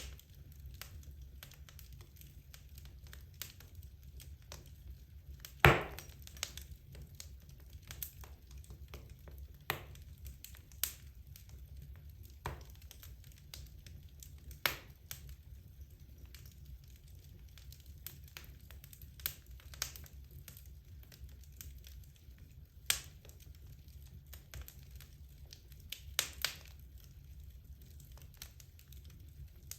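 Wood logs burning in a fireplace, crackling with scattered sharp pops over a low steady rumble; the loudest pop comes about six seconds in, with two more strong ones in the last third.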